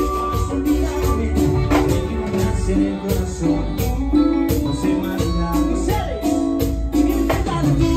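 Live Latin dance band playing, with a male lead singer over a steady drum and percussion beat and keyboards.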